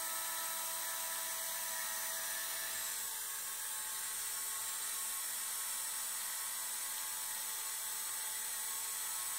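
JetCat model turbine engine spun by its starter motor in the cooling cycle after shutdown, giving a steady high-pitched whine with hiss as it turns slowly to bring the exhaust temperature down. Some lower tones in the whine fade out about three seconds in.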